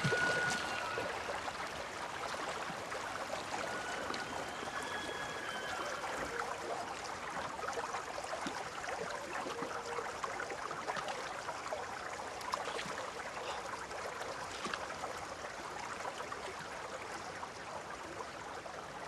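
River water flowing steadily in an even rush, with a few short whistle-like tones in the first six seconds. It grows slightly quieter toward the end.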